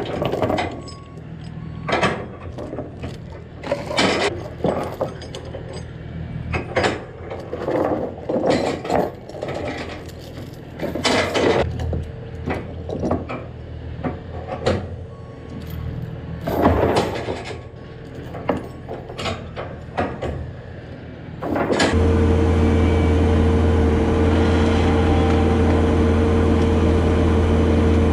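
Steel load chains clanking and rattling against pallets and a wooden trailer deck as lever load binders are released and the chains are pulled off, in irregular separate clanks. About 22 seconds in, this gives way suddenly to a Bobcat T650 skid-steer loader's diesel engine running steadily as it lifts a pallet on its forks.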